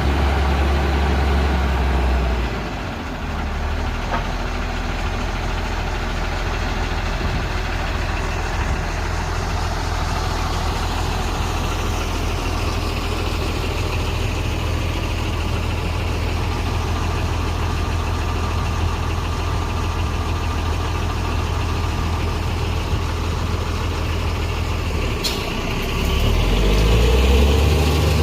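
Heavy diesel engine of a motor grader running steadily with a deep drone. It eases off about two and a half seconds in and works harder again near the end, with a single sharp click shortly before.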